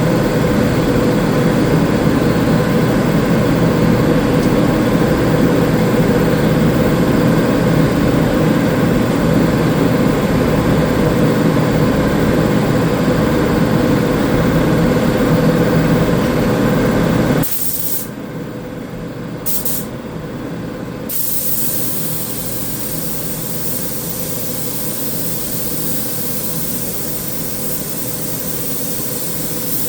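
Paint spray gun hissing as it sprays sealer primer. A loud, steady motor hum runs under it for the first half or so and cuts off suddenly. After that the gun's hiss carries on alone, stopping briefly twice as the trigger is let off.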